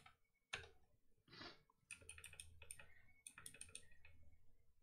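Faint typing on a computer keyboard: a few single keystrokes, then a quick run of keystrokes from about two seconds in.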